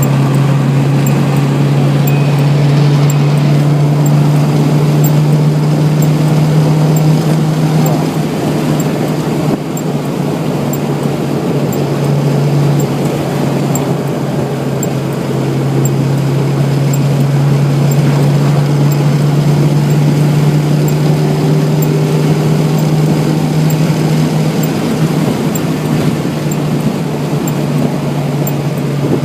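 Toyota AE86 Sprinter Trueno at steady speed, its 4A-GE twin-cam four-cylinder holding a steady drone, with the 'kin-kon' speed-warning chime ringing repeatedly, the signal that the car is over about 105 km/h.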